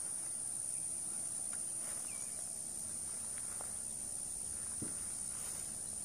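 A steady, high-pitched insect chorus, with a few faint scattered ticks.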